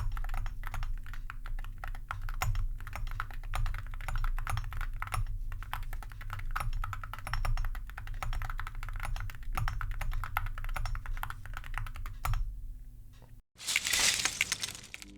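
Fast, continuous typing on a mechanical keyboard with metal (likely zamak) keycaps over linear switches, a dense patter of keystrokes that stops about twelve seconds in. A brief loud burst of noise follows near the end.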